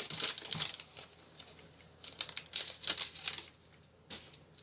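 Foil booster-pack wrapper crinkling as it is handled, in irregular crackly bursts with the busiest stretch about two and a half to three and a half seconds in.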